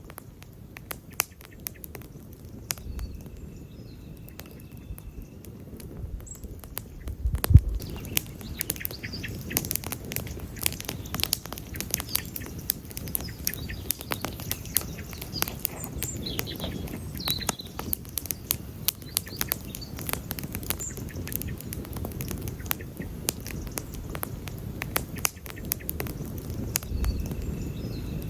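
Wood campfire crackling and popping, dense irregular snaps over a low steady rumble of the flames, with one much louder pop about seven and a half seconds in.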